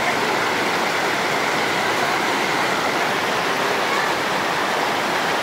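White water rushing and churning over rocks in a river channel, a steady, unbroken rush.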